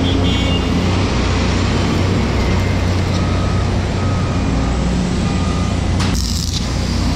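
Construction-site machinery running steadily, a loud dense rumble with a low engine hum, and a few short beeping tones from about three seconds in.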